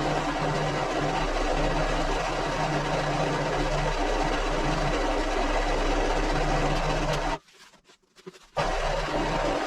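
Yayoi Kagaku automatic wallpaper pasting machine running steadily, its motor and rollers whirring; it stops for about a second near the end, then starts again.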